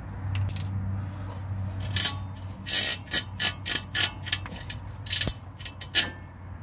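Rubber pressure hose being twisted and pried off the metal pipe of a Ford Transit's diesel particulate filter: a run of short scrapes and clicks from about two seconds in to near the end, over a steady low hum.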